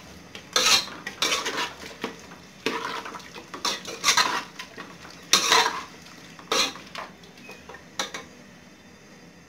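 Metal spoon scraping and clanking against the inside of an aluminium pressure cooker while potato and cauliflower are stirred and sautéed, in irregular strokes about once a second that thin out near the end.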